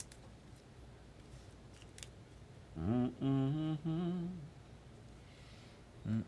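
A man humming a few sustained low notes of a tune about three seconds in. A couple of faint clicks come before it.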